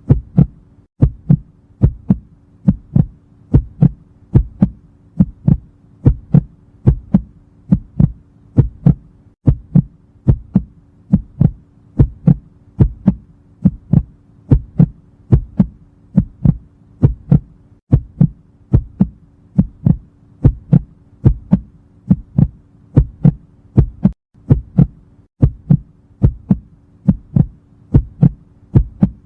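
Heartbeat sound effect: a steady lub-dub, paired low thumps repeating about once a second, over a faint steady hum.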